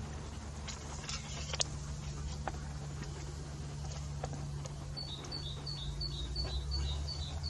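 A single sharp shot from a PCP air rifle about one and a half seconds in, over a steady low wind rumble. Near the end a bird gives a quick run of repeated high chirps.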